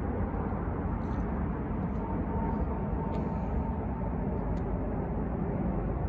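Steady low background rumble, with a faint steady tone joining it about two seconds in.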